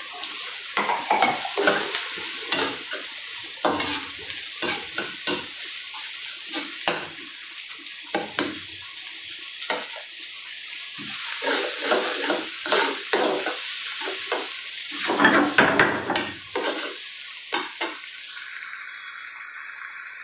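Tomatoes, onion and garlic sizzling in hot oil in a frying pan while a spatula stirs them, scraping and knocking against the pan in irregular strokes; a cluster of louder strokes comes about three quarters of the way through. The tomatoes are being stirred until they break down and release their juice.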